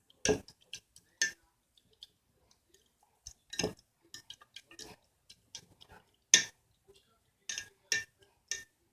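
A stirring utensil clinking against a bowl while mixing slime activator solution (sodium tetraborate in water): irregular sharp clinks, about eight of them, the loudest about six seconds in.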